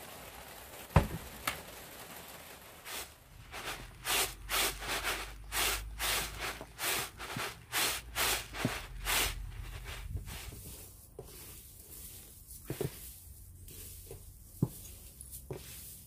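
Dried Thai coriander seeds being shaken in a plastic sieve: a rhythmic rattling swish about twice a second, after a sharp knock about a second in. Near the end, quieter rustling of dry coriander stalks and seeds stirred by hand, with a few light knocks.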